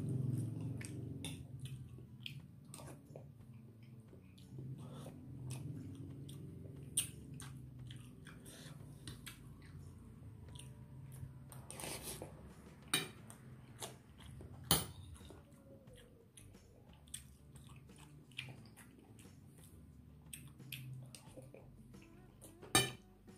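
Close-up chewing of a mouthful of rice and soto betawi meat, with a metal spoon scooping and clinking against a plate, several sharp clinks standing out.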